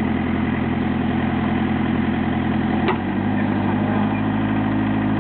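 JCB 208S skid steer backhoe's Perkins four-cylinder diesel engine running steadily. A single sharp click comes about three seconds in, after which the engine's note shifts slightly.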